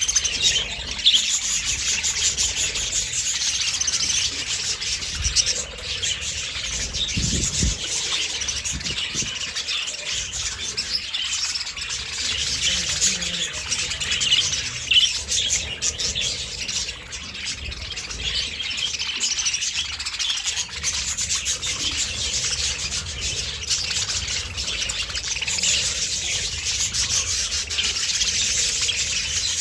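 A flock of budgerigars chattering and chirping continuously, many birds calling over one another at once.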